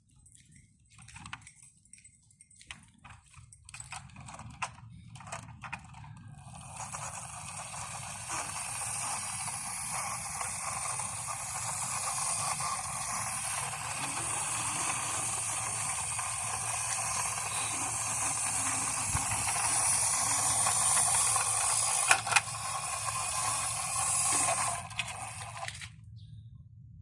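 Toy truck's small motor and plastic gears whirring steadily for about twenty seconds, growing slightly louder and then stopping suddenly, after a few seconds of scattered clicks as the toy is handled.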